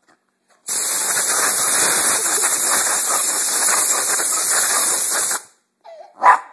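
A loud, steady hiss of compressed air released from an air compressor starts under a second in, runs about four and a half seconds and cuts off suddenly. Near the end comes a single short, loud bark from a dog.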